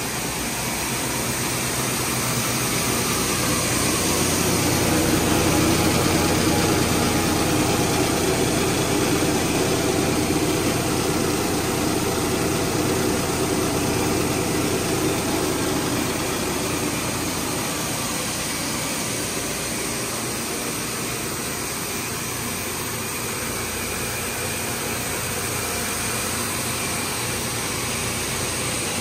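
Steady mechanical noise of a running plastic recycling and pelletizing line, a continuous machine hum that grows louder for a stretch in the first half, then settles.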